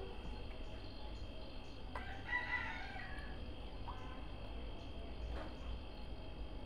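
A rooster crows once, about two seconds in, over a steady high chirring of insects.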